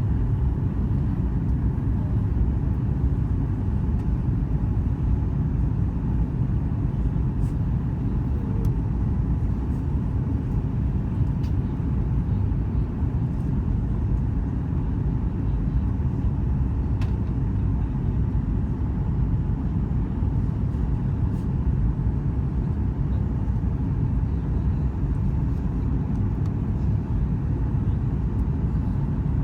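Steady low rumble of a Boeing 737 MAX 8 in flight on approach, heard from inside the passenger cabin: airflow and the twin CFM LEAP-1B engines, with no change in level.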